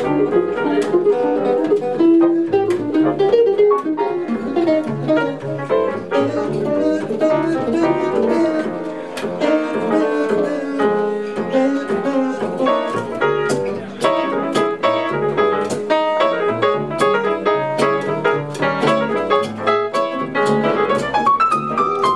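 Live jazz trio of piano, upright bass and guitar playing a tune together, with a plucked bass line underneath.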